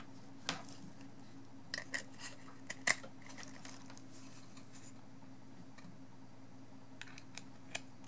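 Scattered light clicks and taps as a USB cable tester board is handled and cable plugs are pushed into its ports, a few around two to three seconds in and a few more near the end, over a faint steady hum.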